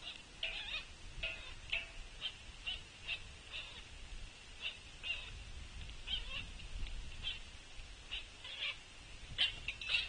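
Juvenile pileated woodpecker begging for food from its parent: short, hoarse calls repeated irregularly, about twice a second.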